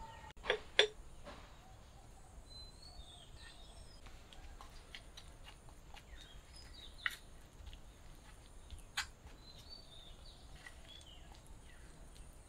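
Small birds chirping on and off in quiet surroundings, with a few sharp clinks of a spoon against a metal bowl as a green chutney is mixed.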